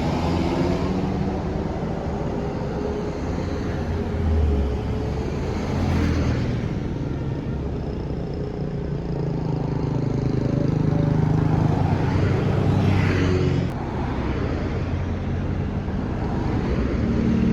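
Road traffic passing close by: engines rumbling with tyre noise that swells and fades as vehicles drive past one after another, the closest pass about 13 seconds in.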